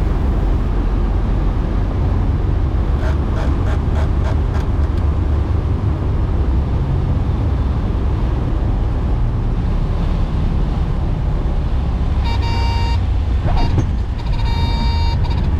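Cessna 182's engine and airflow as a steady low drone in the cockpit at low landing power, with a short pitched tone sounding twice near the end.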